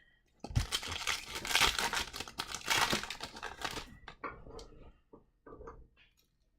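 Foil trading-card pack wrapper crinkling as it is handled, a dense crackle for about three and a half seconds, then a few smaller crinkles and clicks.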